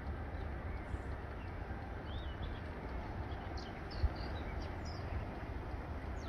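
Small birds chirping here and there in short, high calls over a steady low rumble, with a single short bump about four seconds in.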